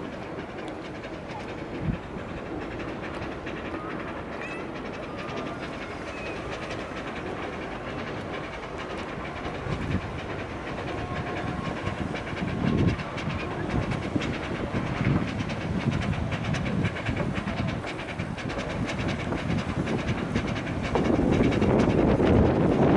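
Head Wrightson vertical-boiler geared tank locomotive running slowly along the track, its wheels knocking now and then over rail joints and points, growing louder as it comes closer. A louder rushing noise sets in near the end.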